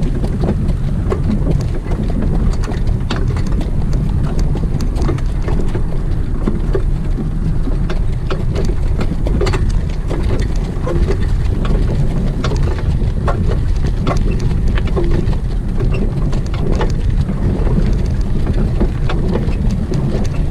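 Wind rumbling on the microphone of a harness horse's driver, with the patter of the horse's hooves throughout as it goes along the track.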